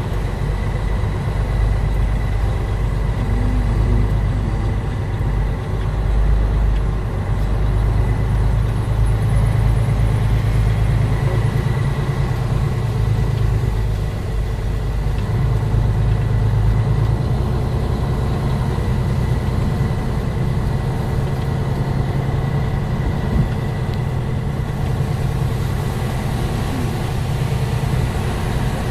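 Truck engine running with a steady low rumble, heard from inside the cab, with a faint steady high whine over it. The low drone shifts in pitch about 17 seconds in.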